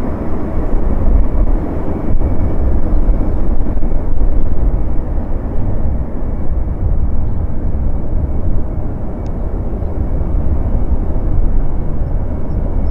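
Jet engine of a NASA ER-2, its General Electric F118 turbofan, running steadily as the aircraft sits on the runway. It is a low, even noise with no change in pitch.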